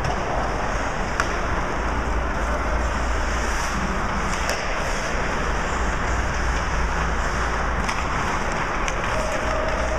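Ice hockey rink sound during play: a steady rush of arena noise over a constant low hum, with skates on the ice and a few sharp clacks of sticks hitting the puck.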